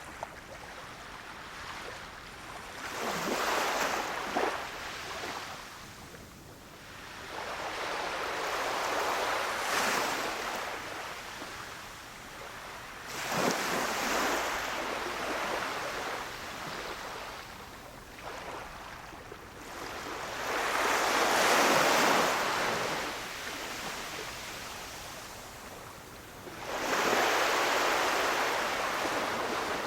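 Gentle sea waves breaking on a beach and washing back, five surges of rushing water that rise and fade every four to eight seconds.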